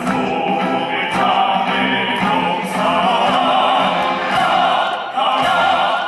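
Military band performance with a choir-like group of voices singing a slow song over the band's accompaniment.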